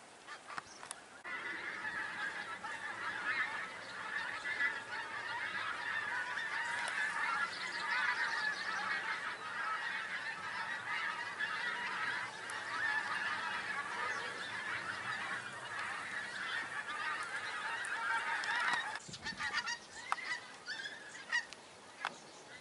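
A large flock of geese flying overhead, many birds honking at once in a dense, continuous chorus. A little over three-quarters of the way through, the chorus drops off suddenly to a few scattered calls.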